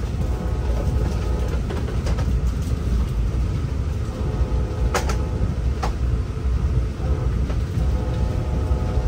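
Steady low rumble of a Brightline passenger train running, heard from inside the passenger coach, with a faint steady whine above it. Two light clicks come about five and six seconds in.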